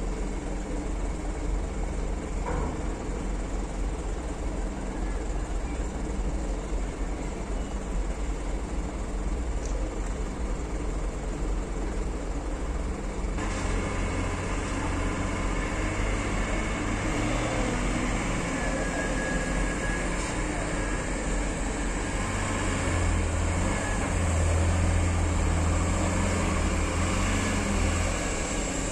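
Diesel engine of a loaded cargo truck driving slowly off the ferry and past close by, a low rumble that grows louder from about halfway through and is loudest near the end.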